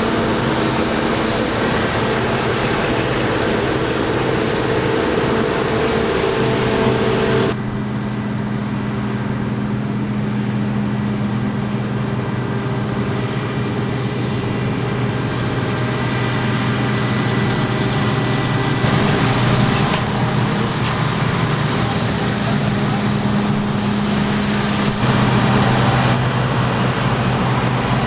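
Large diesel farm machinery, combine harvesters and tractors, running steadily at working speed. The engine pitch and tone change abruptly three times as different machines take over.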